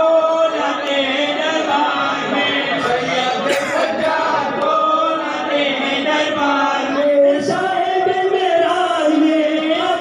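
A group of men chanting a nuha, a Shia mourning lament, together in long held lines, led by reciters singing into microphones.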